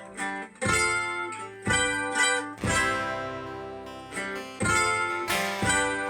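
Acoustic guitar strumming the opening chords of a song, each chord ringing on until the next is struck, roughly once a second.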